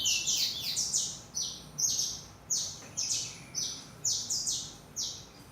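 Small songbird giving a series of sharp, high chirps, each dropping slightly in pitch, often in quick pairs, repeated about once or twice a second. The chirps grow fainter and stop near the end.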